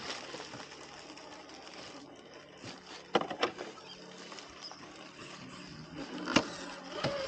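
Small electric motor and gearbox of an RC scale crawler whirring faintly at low speed, with a few sharp knocks as the truck's tyres and chassis hit the rocks: two a little before halfway, one near the end.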